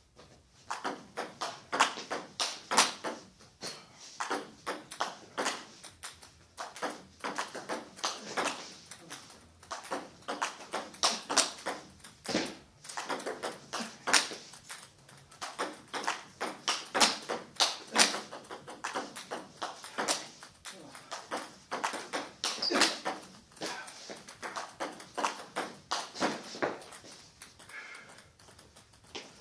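Table tennis ball rallied back and forth: a long, quick run of sharp clicks as the celluloid ball is struck by the rubber bats and bounces on the table, echoing in a hall. The clicks stop a couple of seconds before the end.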